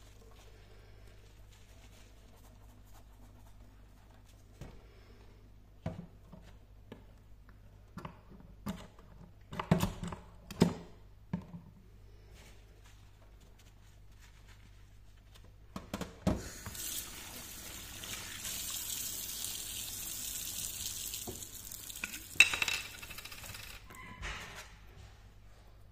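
Soapy sponge and a mobile phone handled wet in a stainless steel kitchen sink: scattered light knocks and clicks, then about six seconds of steady running water from the tap into the sink, ending with a sharp knock.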